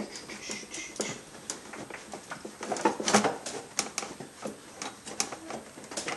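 Irregular light metallic clicks and knocks of engine parts and bolts being handled by hand while an intake manifold is fitted onto its studs.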